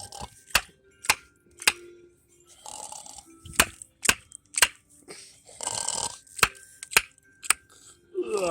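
Sharp snapping clicks in three sets of three, about half a second apart, each set following a short breathy, snore-like sound: a sleeper's clicking habit.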